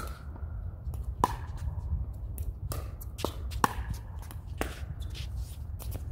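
Pickleball paddles striking a plastic pickleball in a doubles rally: a string of sharp pops about a second apart, the first being the serve, with the ball bouncing on the hard court between some of them.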